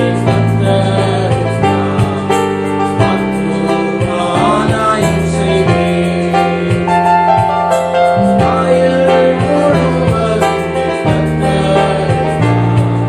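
Christian worship music: voices singing over keyboard with a steady bass line.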